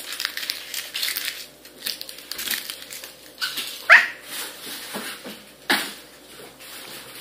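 Crumpled Kinder egg foil wrappers crinkling and rustling as they are handled, with a short rising squeal about four seconds in and a thump near six seconds.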